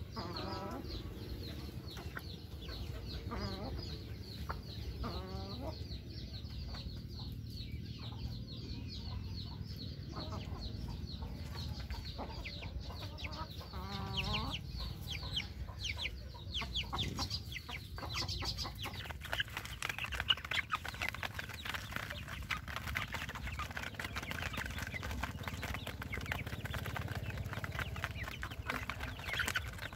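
Domestic chickens clucking and calling while feeding, with a few separate drawn-out calls in the first half and a busier jumble of clucks from about eighteen seconds in. A steady run of short high chirps goes on behind them.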